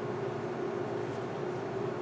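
Steady hum inside the cabin of an Airbus A330 airliner, even throughout, with a droning tone in the low-middle range and no change in pitch.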